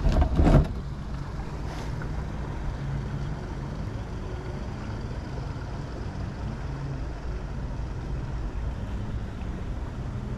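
Steady low rumble of wind on the microphone and moving water from a boat, with a brief loud bump in the first half second.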